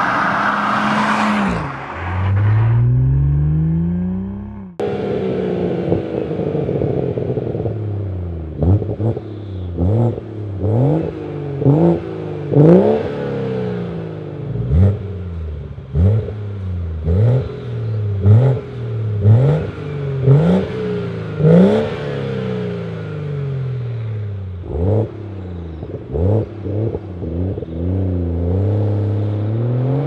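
BMW M140i's 3.0-litre B58 straight-six on a Cobra Sport cat-back exhaust, idling and blipped again and again, each rev rising sharply and falling straight back, roughly once a second. It opens with the car passing at speed and accelerating away before an abrupt cut, and it ends with the engine pulling away and rising in pitch.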